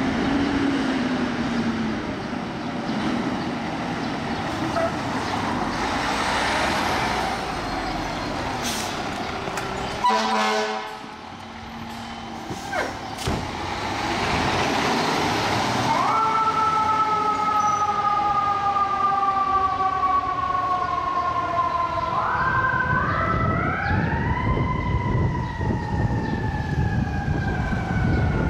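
Fire engine responding: the truck's engine runs as it pulls out, and a short horn blast sounds about ten seconds in. From about halfway the siren wails, jumping up in pitch, winding up again a few seconds later and falling slowly.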